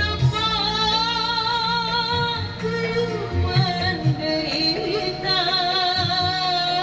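A singer holding long notes with vibrato over a music backing track with sustained bass notes.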